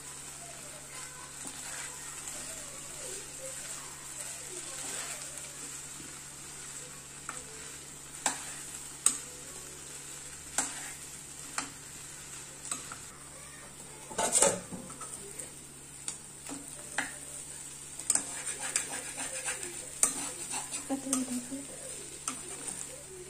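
Diced potatoes frying in oil in a nonstick kadai, with a steady sizzle under a metal spoon stirring and scraping them. Sharp knocks of the spoon against the pan come now and then: the loudest is just past the middle, and a quick run of them comes near the end.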